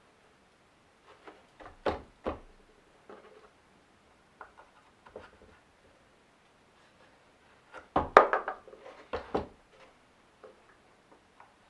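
Wooden knocks and clatter: a few sharp hits about two seconds in, lighter taps after, and a louder run of knocks about eight to nine and a half seconds in.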